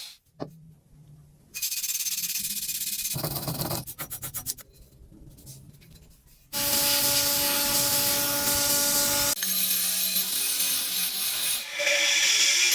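Hand-tool scraping and filing on metal in short cut-together clips, with a quick run of even strokes near the middle. This is followed by a motor-driven tool running with a steady hum for about three seconds, then more scraping.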